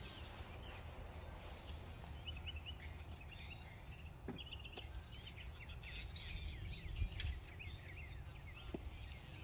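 Small birds chirping, many short high chirps repeating throughout, over a low steady rumble.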